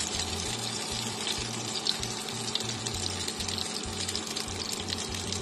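Minced-fish-stuffed bell pepper pieces sizzling steadily in hot oil in a frying pan, with many small crackles and spatters as they are turned over.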